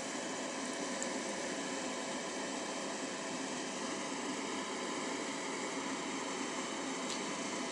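Steady fan-like whirring hiss with no change in pitch or level, and a faint click near the end.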